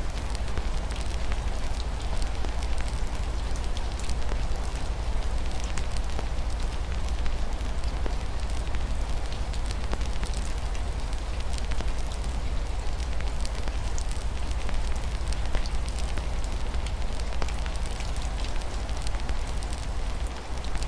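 Wood fire crackling with frequent small, irregular pops over a steady hiss of rain and a constant low rumble.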